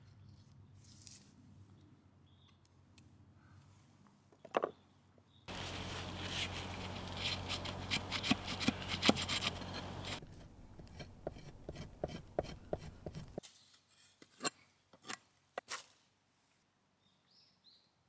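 A broad cleaver-like knife scraping bark strips against a wooden chopping block: a dense run of rapid rasping strokes begins about five seconds in, eases into lighter knife taps, and gives way to a few single knocks near the end.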